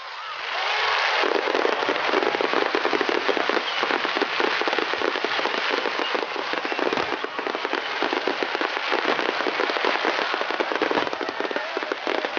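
Aerial fireworks in a starmine barrage, crackling densely: a continuous rattle of many rapid small pops that swells in during the first second and then holds.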